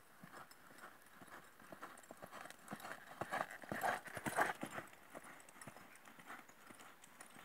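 American Quarter Horse's hoofbeats on sandy arena ground in an even, repeating rhythm. They grow loudest about three to four seconds in as the horse passes close, then fade as it moves away.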